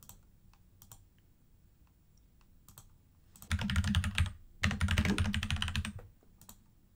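Computer keyboard typing in two quick bursts of rapid keystrokes starting about halfway through, after a few scattered single clicks.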